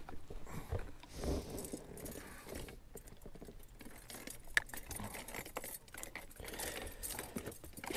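Metal clip fish stringer jingling and clicking as a crappie is hooked onto one of its wire snaps, with a sharp click about four and a half seconds in.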